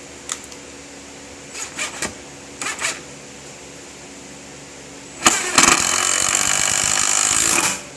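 A few light clicks and knocks of handling, then a power drill runs steadily for about two and a half seconds and stops suddenly, driving a screw or boring a pilot hole.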